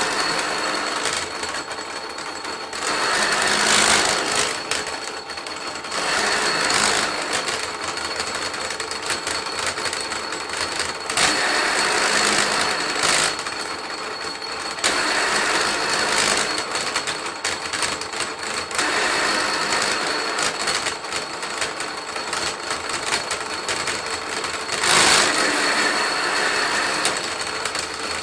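Electric willow-rod splitting machine running, its motor giving a steady high whine, with louder spells every few seconds as willow rods are fed through and split into three or four strips.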